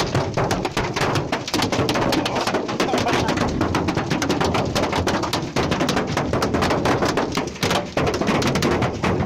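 A dense, rapid clatter of many small sharp impacts over a steady rushing noise, with brief lulls about five and a half and eight seconds in.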